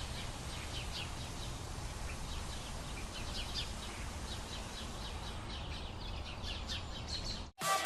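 Morning songbirds chirping and singing: many short, quick high notes from several birds, over a steady low outdoor rumble. The ambience cuts off suddenly near the end.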